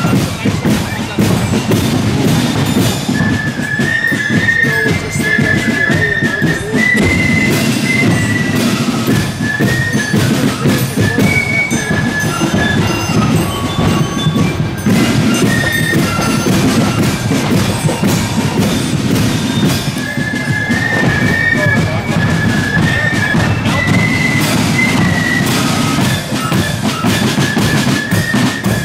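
Marching flute band playing a tune: flutes carry a high melody over a steady beat of side drums and bass drum.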